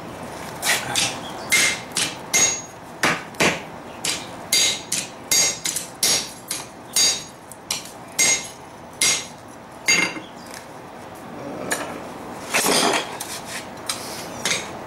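Hand hammer striking a hot steel plate on an anvil, about two ringing blows a second, flattening the plate's bark-textured side. The blows stop about ten seconds in and are followed by a short clatter.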